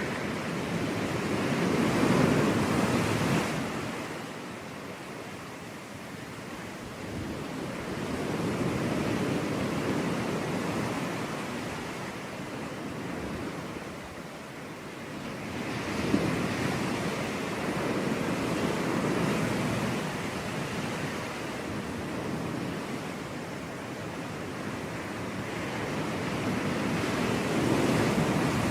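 Sea waves breaking on a beach and washing back, about four slow surges in turn, each swelling and fading; the loudest come about two seconds in and near the end.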